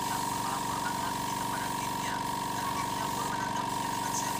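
Small motor of spray-painting equipment running steadily, a constant hum with a high whine, as a bike frame is spray-painted with clear coat.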